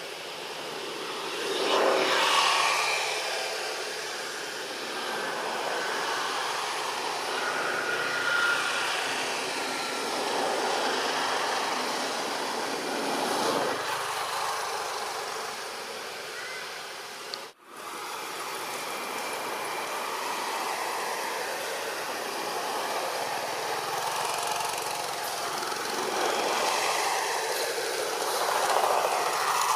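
Steady outdoor background noise of passing road traffic: a constant rush that swells and fades several times as vehicles go by, one with a falling pitch near the start. The sound cuts out for an instant a little past halfway.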